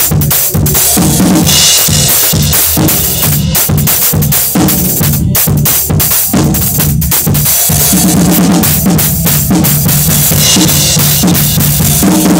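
Drum kit played close up within a band: kick, snare and cymbal strikes in a busy groove, with sustained low pitched notes underneath.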